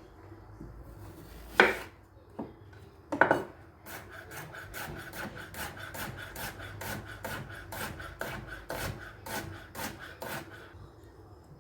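Kitchen blade working vegetables: two sharp knocks, then a steady run of short scraping strokes, about two and a half a second, that stops shortly before the end.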